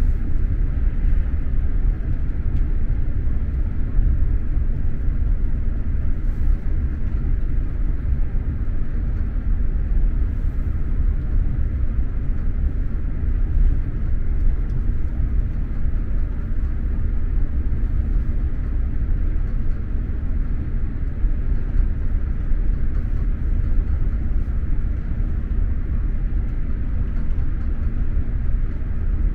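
Steady low rumble of an SJ X2000 high-speed train running along the track, heard from inside a passenger coach: wheels and running gear on the rails, with a fainter hiss above, unchanging throughout.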